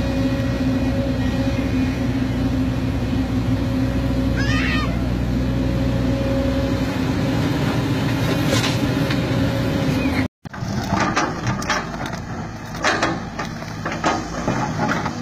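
JCB JS205 tracked excavator's diesel engine running steadily as the machine works. After a brief cut about ten seconds in, an excavator's bucket scrapes and knocks irregularly against rocky ground over its engine.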